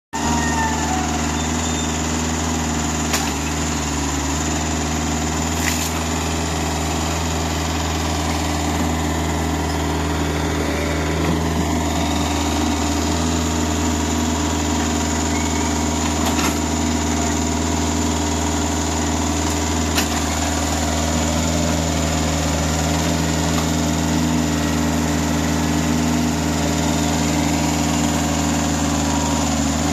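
Yanmar ViO55 mini excavator's diesel engine running steadily, with a few light knocks.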